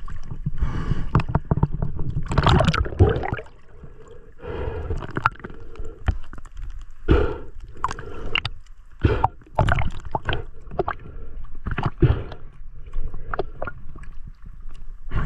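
Water splashing and gurgling close to the microphone, with uneven sharp knocks, as from a free diver moving in the water.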